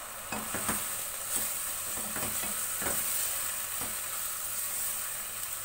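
Beef keema (mince) sizzling in hot oil as it is bhuna-fried with its spices, stirred by a spoon that scrapes and knocks against the pan every second or so.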